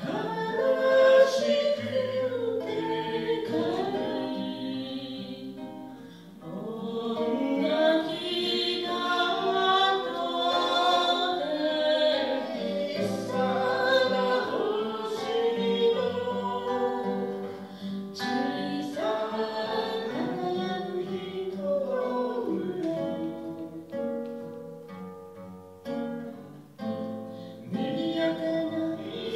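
A man singing a folk song to his own acoustic guitar accompaniment, through a microphone.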